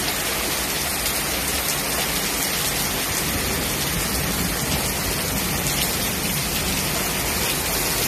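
Torrential typhoon rain pouring down on a paved road and gardens: a steady, dense hiss, rain like a waterfall.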